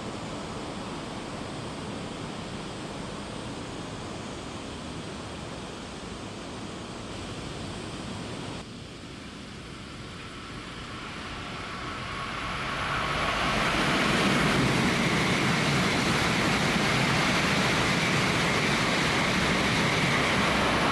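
Tokaido Shinkansen train approaching and rushing through at high speed: a rushing noise that builds from about halfway in and stays loud to the end.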